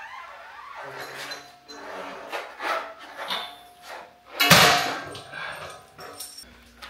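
Metal clanks, knocks and rattles from a red steel folding shop crane as it is unfolded and stood upright, with one loud clunk about four and a half seconds in.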